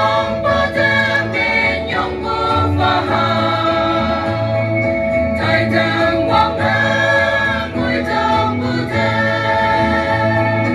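A mixed choir of women and men singing together in parts, holding notes that change every second or two.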